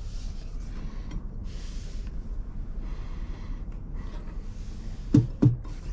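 Wall-mounted waste bin in a train's seat bay being opened by hand, its flap giving two sharp knocks about five seconds in, over a steady low hum and hiss inside the carriage.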